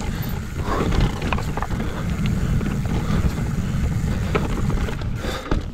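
Downhill mountain bike ridden down a dirt trail: wind rumble on the microphone, with tyres and frame rattling over the ground, easing off near the end.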